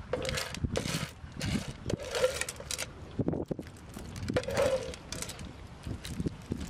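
Small cooked shellfish shells rattling and clinking against a ceramic plate and a metal spoon as they are stirred and scooped. The clicks come irregularly, with a few louder scraping sounds among them.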